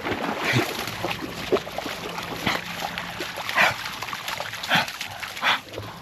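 A dog splashing as it wades through shallow lake water, a string of short splashy bursts about once a second.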